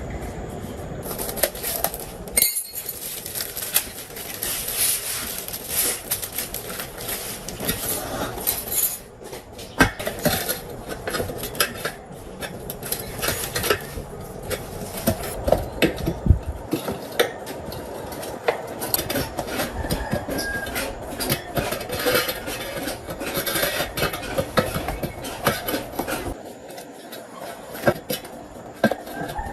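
Metal parts and hand tools clinking, tapping and scraping against each other in a busy run of short, sharp clicks.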